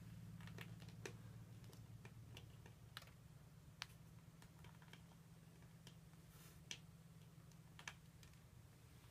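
Near silence with a low steady hum and a scattering of faint clicks and scratches: a Megasoma gyas porioni beetle's claws gripping a wooden log and a plastic case as it is set down.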